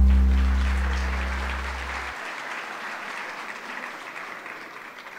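The closing chord of the film's music fades out, its bass stopping about two seconds in, as an audience applauds. The applause thins and dies down toward the end.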